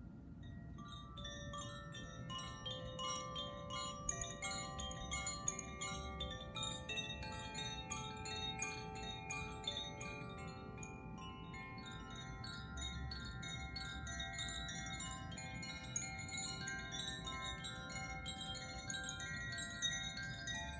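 Hand-held tuned healing chimes of the Koshi type, swirled so that the clapper inside strikes the tuned metal rods again and again. Many high ringing notes overlap into a continuous tinkling wash, which starts about a second in and runs on densely.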